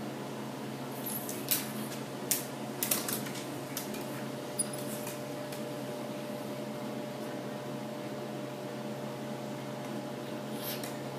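Steady hum of aquarium equipment, with a few sharp clicks and taps over it in the first five seconds and a softer one near the end.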